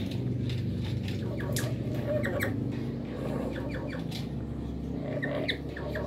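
Black-capped lories giving short, high squeaks and chirps, a few at a time, with small clicks, over a steady low hum.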